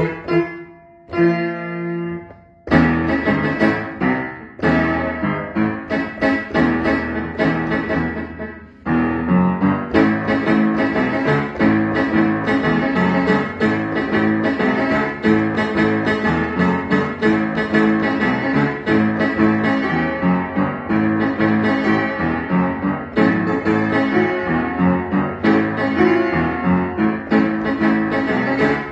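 Upright piano played by hand: chords and a melody line, breaking off briefly about a second in and again around eight seconds in, then playing on steadily.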